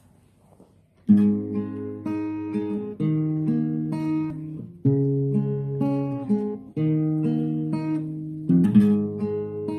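Acoustic guitar being played, chords picked and strummed in a steady pattern, starting about a second in after a brief hush.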